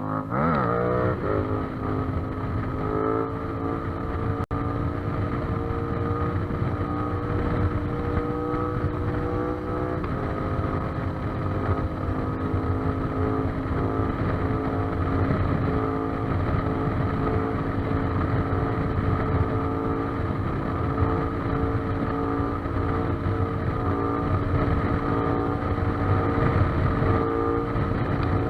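Yamaha MT-07 parallel-twin engine through an Akrapovic exhaust, ridden at speed. The revs drop sharply in the first second and step a little around three and ten seconds in, then the engine runs at a fairly steady pitch, with wind on the microphone.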